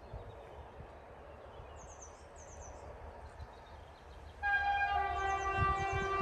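Diesel locomotive's multi-tone air horn sounding a long, steady chord that starts about four seconds in, over a low rumble. Small birds chirp faintly before and during the horn.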